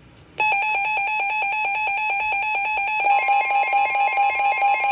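Two weather alert radios, a Midland WR120 and a Reecom R-1630, sounding their alarms for a severe thunderstorm warning. A rapid, shrill electronic beeping starts about half a second in. About three seconds in, a steady higher tone and a second beeping join it.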